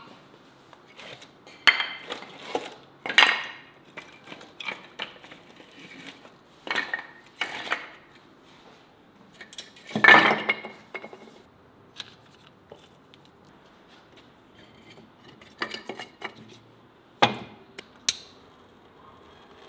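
Split firewood logs being picked up and set down on a brick fireplace hearth: a string of separate wooden knocks and clatters, the loudest about ten seconds in. Near the end a sharp click as a gas lighter is sparked.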